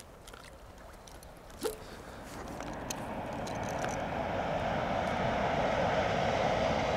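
Distant engine noise, building gradually from about two seconds in and holding steady and loud near the end, like an approaching vehicle or aircraft.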